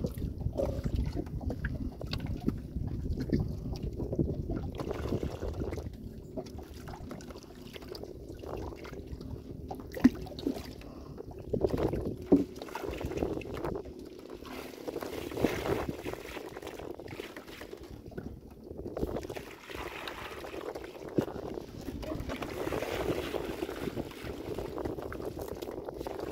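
Water sloshing and splashing, with a couple of sharp knocks about ten and twelve seconds in.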